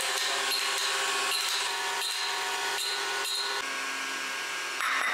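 A machine running steadily with a regular pulse a little more than once a second, dropping away about three and a half seconds in; a short hissing burst near the end.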